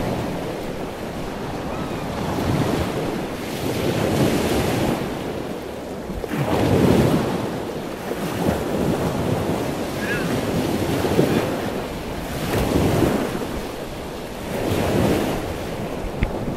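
Surf washing over a shallow rocky reef, swelling and falling every couple of seconds, with wind buffeting the microphone.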